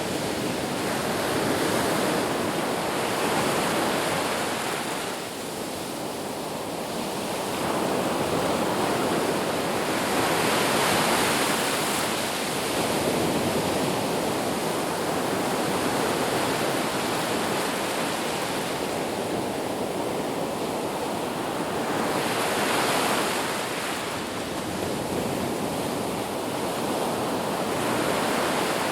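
Sea waves breaking and washing on a shore: a continuous rush of surf that swells and eases every few seconds.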